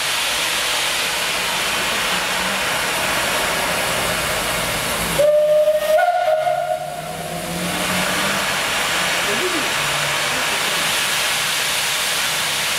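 Small steam locomotive blowing off steam with a steady hiss. About five seconds in, its steam whistle gives one blast of about two seconds, then the hiss carries on.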